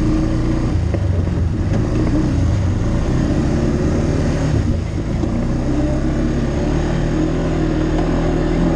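ATV engine running steadily under way on a dirt trail, a constant drone with a brief dip about five seconds in.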